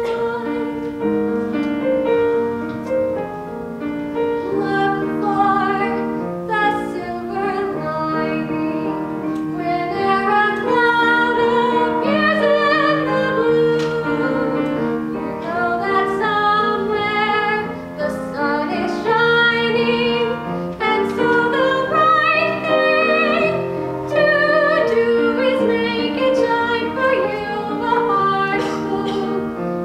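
A young woman singing a solo with piano accompaniment, her held notes carrying vibrato.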